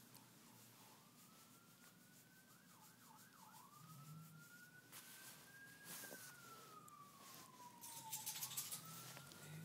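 Faint siren, wailing slowly up and down with a short run of quick yelps about three seconds in.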